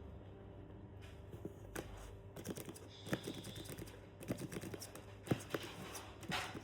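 Handmade paper clicker fidget toys being clicked and handled close to the microphone: a run of irregular sharp clicks and taps, several a second, with a brief papery rustle near the end.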